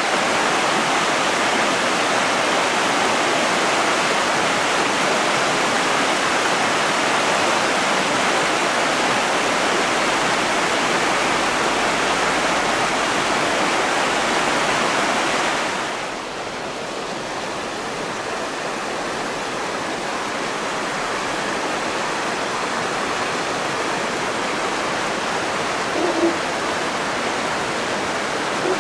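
Mountain river rushing over snow-capped boulders, a steady, loud rush of water. About halfway through it becomes somewhat quieter and duller.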